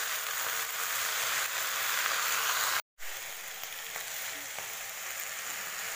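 Chopped radish leaves frying in hot oil in a pan, a steady sizzle as they are stirred with a wooden spatula. The sound drops out for an instant about halfway through and comes back slightly quieter.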